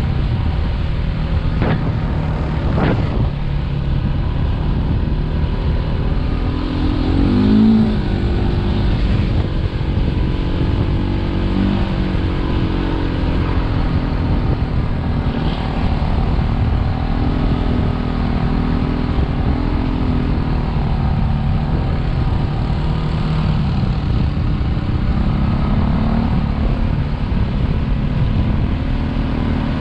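Quad bike engine running under way, its pitch rising and falling with the throttle, heard from the rider's helmet. Two brief sharp clicks about two and three seconds in.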